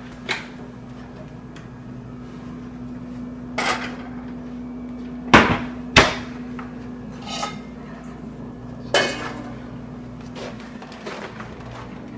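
Kitchen clatter of cookware being handled: scattered knocks and clinks, the loudest two sharp knocks about half a second apart near the middle, over a steady low hum.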